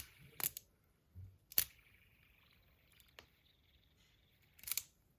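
Fidget spinner being handled: a few short, sharp clicks and taps, the sharpest about a second and a half in and a small cluster near the end.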